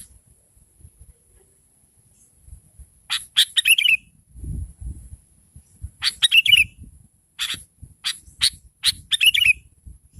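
Sooty-headed bulbul calling in lively bursts of quick, sharp chirps, some ending in a short warble. The bursts come about three seconds in, again around six seconds, and in a quicker run near the end. A few soft low thuds sound in between.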